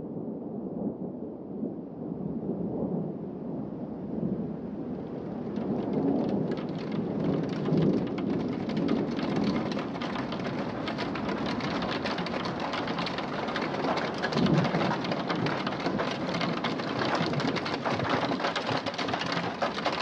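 Thunderstorm: thunder rumbling under heavy rain, with hail pelting in a dense clatter that thickens and grows louder from about five seconds in.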